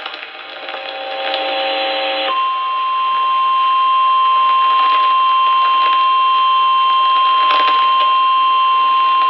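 Emergency Alert System weather warning: after about two seconds of mixed tones and static, the single steady attention tone of a National Weather Service alert starts and holds, signalling that a warning message is about to be read.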